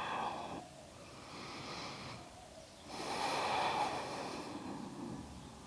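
A woman breathing deeply and audibly while holding a yoga pose. A loud breath ends just after the start, a softer one follows, and another long loud breath comes about three seconds in.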